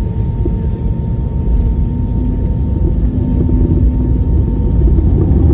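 Airbus A321neo jet engines at takeoff power during the takeoff roll: a heavy low rumble with a thin steady whine over it, growing a little louder toward the end.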